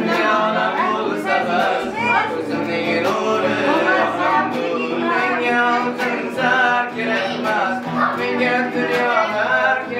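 Music: a song with a lead vocal over instrumental backing with a steady beat.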